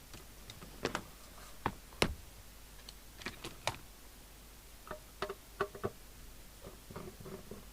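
Scattered small clicks and knocks from handling the radio, tools and screws on a workbench, the sharpest about two seconds in and a quick run of them around five seconds in.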